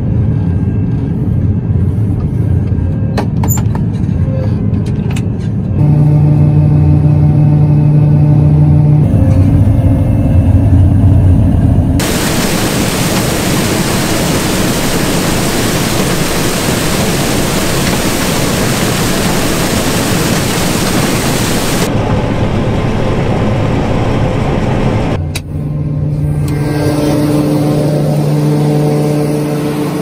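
John Deere 9500 combine running while harvesting corn: a steady machinery hum with a low engine tone that comes and goes at abrupt changes. For about ten seconds in the middle a loud, even rushing noise takes over, the sound close up at the corn head as stalks are pulled in.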